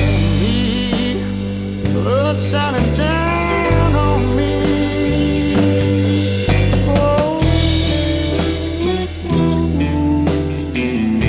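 A rock-blues band song with drums, bass and guitar. A melody bends up and down in pitch about two to four seconds in.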